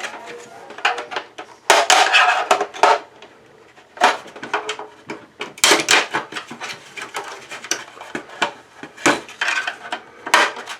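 Plastic housing of an Arris cable modem being forced apart: clusters of sharp cracks, clicks and clattering knocks, busiest about two seconds in, around five to six seconds, and near the end.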